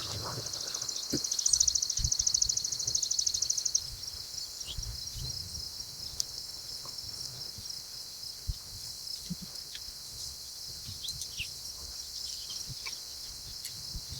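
Outdoor ambience with a high, rapid trill from an insect or small bird lasting about three seconds. Fainter high chirps follow, with scattered low bumps.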